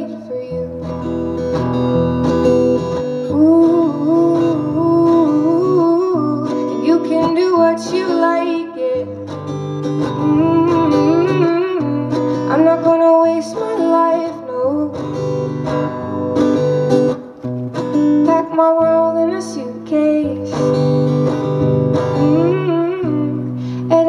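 A woman singing a song while strumming her acoustic guitar, a solo singer-songwriter performing live.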